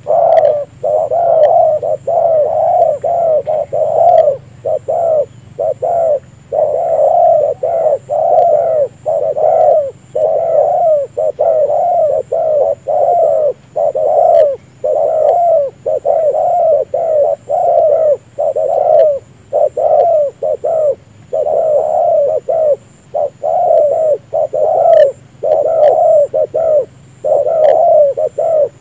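Spotted doves cooing: short, throaty coos repeated about twice a second with hardly a pause, loud and close.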